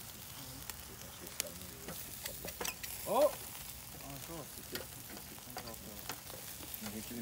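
Chicken sizzling over a charcoal grill, with scattered crackles and pops from the fat dripping onto the coals. About three seconds in, a brief sound glides up and then down in pitch.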